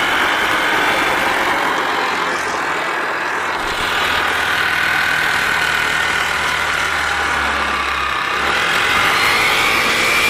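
Honda Activa scooter's single-cylinder four-stroke engine running steadily, driving the homemade oil-barrel boat under way, its pitch rising near the end.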